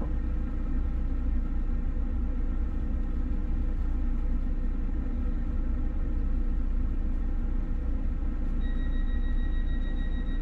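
Steady low rumble of an idling engine with a constant hum. A steady high whine at two pitches joins near the end.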